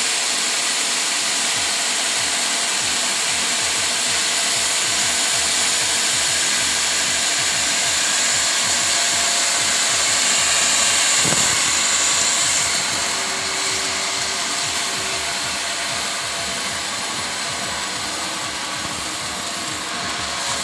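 Sawmill circular saw cutting teak: a steady, hissing saw noise that drops slightly in level about two-thirds of the way through.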